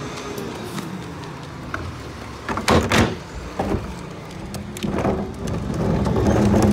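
Rear-loading garbage truck running with a steady low hum, two loud bangs about two and a half to three seconds in and a few lighter knocks after, and the truck's hum growing louder near the end.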